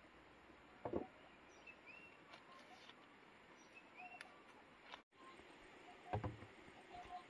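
Bamboo poles knocking against bamboo posts as they are set in place, once about a second in and a few times around six seconds in, over faint bird chirps and outdoor background.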